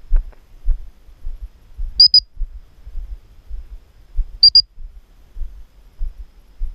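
Footsteps of a person walking through dry grass, with low thumps about twice a second. Twice, about two and four and a half seconds in, come short high-pitched double beeps.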